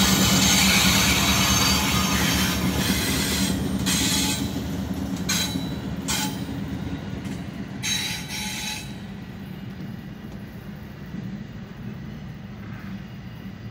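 Freight train passing close by: the Norfolk Southern AC44C6M diesel locomotive's engine drones and fades as it moves off, followed by double-stack container cars rolling by. Their wheels squeal on the rails in several short, sharp squeals through the middle, and the sound grows gradually quieter toward the end.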